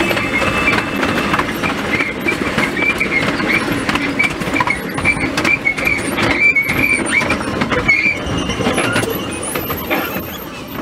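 Choshi Electric Railway 3001/3501 train running along the line, heard from inside the driver's cab and sped up fourfold. Quick, dense clicking of the wheels over rail joints rides on the steady running noise, with a thin high tone coming and going through the middle.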